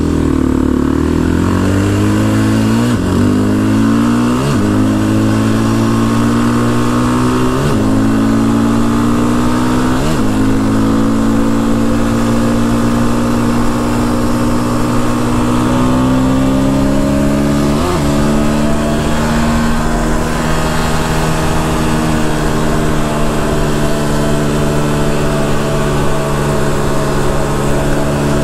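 Quad (ATV) engine pulling up through the gears: the engine note breaks briefly at each shift, about five times, and climbs slowly between them, then holds fairly steady while cruising.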